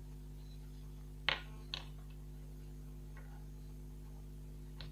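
A few small, sharp clicks, two close together about a second and a half in and fainter ones later, as a laptop's copper heatpipe heatsink and fan assembly is handled against the motherboard, over a steady low electrical hum.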